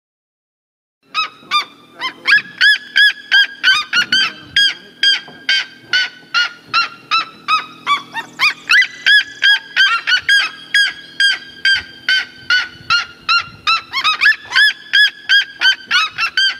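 Red-legged seriema calling: a long, loud series of yelping notes at about three a second, starting about a second in.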